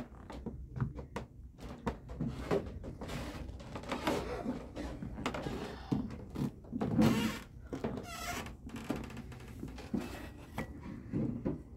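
Footsteps and handling noise on an old wooden plank floor: irregular rustles and knocks, the loudest a little past halfway, with a brief squeak about eight seconds in.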